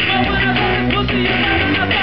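Live rock band playing, with electric guitar.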